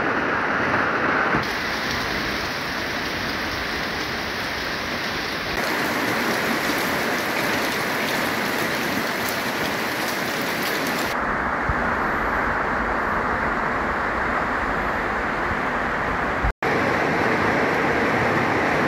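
Steady rain falling, in several cut-together takes, so the sound changes abruptly a few times, with a brief dropout near the end.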